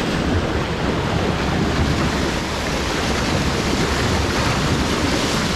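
Water rushing and splashing off a sailboat's bow as it cuts through the sea, with wind buffeting the microphone; a steady rush throughout.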